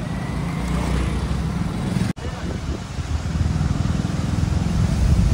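Motorcycle running along the road, its engine rumble mixed with wind noise on the microphone and passing traffic. The sound cuts out for an instant about two seconds in.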